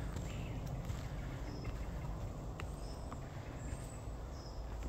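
Woodland ambience: a few faint, short bird chirps over a steady low rumble, with occasional light ticks.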